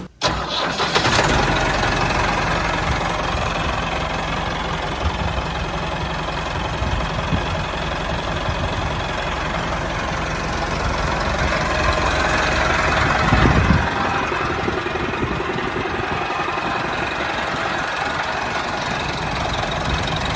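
Tractor engine running steadily at a low, even speed, swelling briefly louder about two-thirds of the way through.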